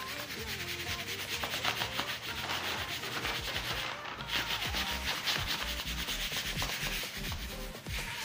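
A hand rubbing and smoothing clear plastic film flat over cardboard: a continuous rub with a fine crackle.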